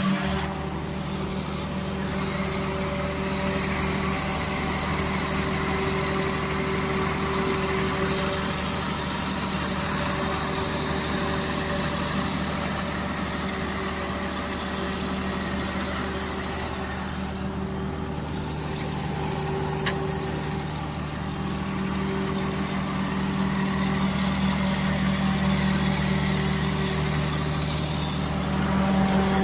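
Cummins diesel generator set's engine running at a steady speed, a constant low hum with a fairly even mechanical din, its tone dipping slightly about halfway through.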